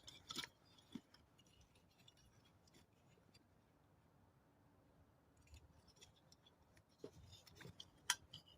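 Near silence broken by faint clicks and light knocks of a Trangia-clone cook kit being handled, with one sharper click near the end.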